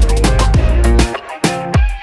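Background music with a steady beat, heavy bass and drum hits, in an Afrobeat-like groove.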